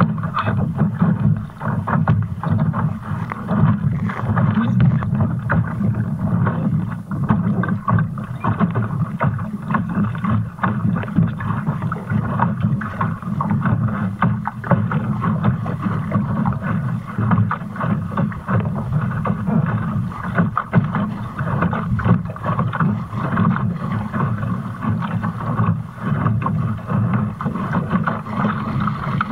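Wind rushing over the deck-mounted microphone and water hissing along the hull of a Fulcrum Rocket sailing dinghy under spinnaker. A steady rushing noise that flutters constantly, with no single event standing out.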